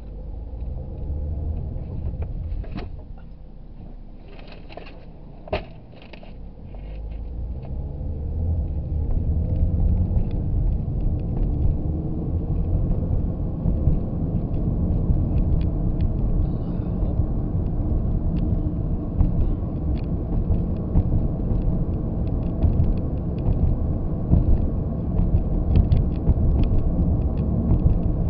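Car road and engine noise heard inside the cabin: a low rumble that builds as the car pulls away from a stop and then runs steady at road speed. A single sharp click sounds about five seconds in.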